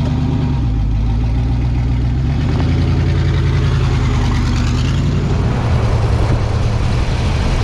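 Twin-turbo LS V8 engine running steadily, its note shifting a little about five seconds in.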